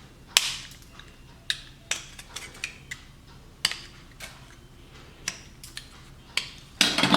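Sharp clicks and short scraping strokes, spaced irregularly about a second apart, from hand-tool work bevelling the corner of a workpiece.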